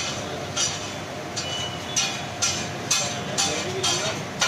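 Metal utensils clinking in sharp strokes about twice a second, over a steady background of murmuring voices.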